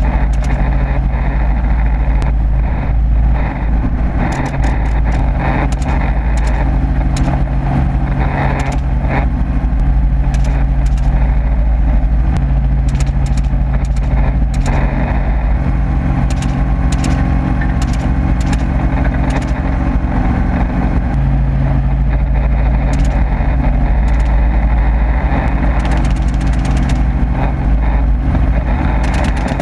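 Helicopter in flight heard from on board: a steady rotor and engine drone with scattered faint clicks.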